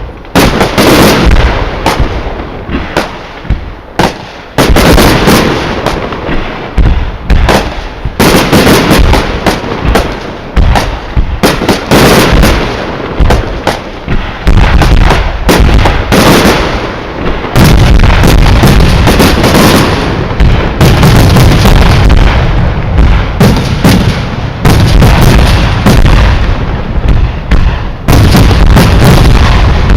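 Fireworks display: a loud, dense barrage of aerial shell bursts, bang after bang with little pause. It grows heavier and deeper from a little past halfway, with booms following one another almost continuously.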